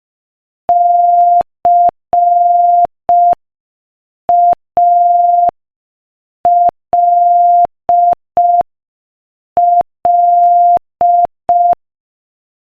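Morse code practice tone at 5 words per minute: one steady beep keyed on and off in short dots and long dashes, spelling the letters C, A, L, L.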